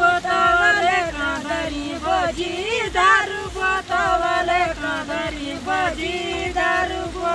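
Two women singing a Garhwali folk song (lokgeet) together, unaccompanied, with long held notes that bend and glide.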